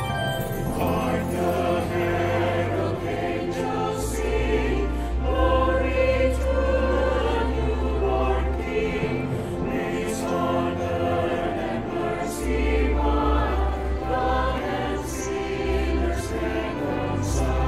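Combined choir singing a Christmas carol medley, accompanied by an instrumental ensemble, with long-held low bass notes underneath.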